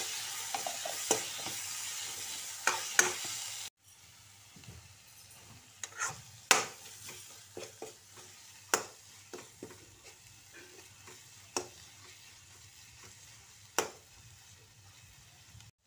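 Tomato and spice masala sizzling in hot oil in a kadai while a metal ladle stirs it, its scrapes and taps on the pan heard as sharp clicks. About four seconds in, the sizzle drops suddenly to a much fainter level, with scattered ladle taps continuing.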